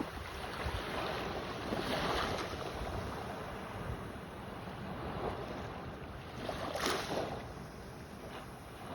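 Sea waves surging and washing in, swelling twice, with wind rumbling on the microphone.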